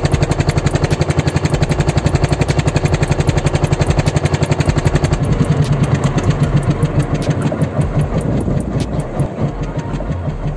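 Fishing boat's engine running with a rapid, even thumping beat; about halfway through the beat becomes weaker and uneven.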